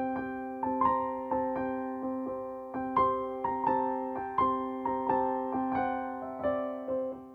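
Soft keyboard (piano) outro music: a slow melody of single struck notes ringing over a steady low note, starting to fade out near the end.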